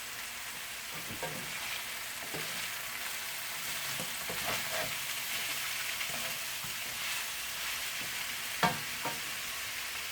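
Chicken wings sizzling in a hot pan, a steady frying hiss, with a few clinks and scrapes of a utensil stirring them; the sharpest knock comes near the end.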